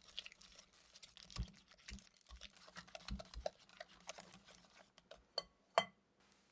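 Wire balloon whisk beating softened butter in a glass mixing bowl: a quick, irregular patter of clicks and scrapes as the wires hit the glass. Near the end come two sharper clicks, each with a short ring.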